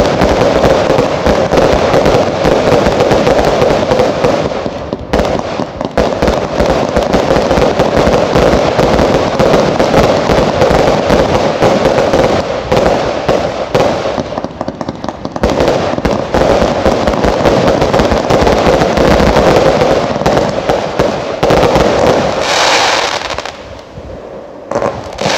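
Category 2 consumer fireworks firing a dense barrage: launches and bursts follow one another almost without pause. The barrage eases briefly about five seconds in, again around fourteen seconds, and shortly before the end.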